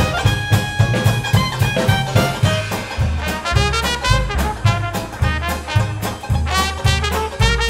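Live traditional jazz band of clarinet, trumpet, banjo, bass and drums playing swing over a steady beat. The clarinet leads at first, then the trumpet takes over the lead about halfway through.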